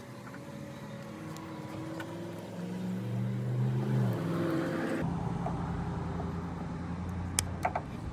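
A motor vehicle engine running, its pitch shifting up and down, then an abrupt change to a steady low rumble. A few light clicks come near the end.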